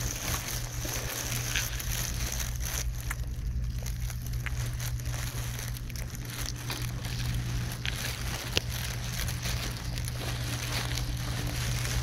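Snowstorm wind buffeting a phone's microphone: a rustling crackle over a steady low hum, with a few sharp clicks, the loudest a little past the middle.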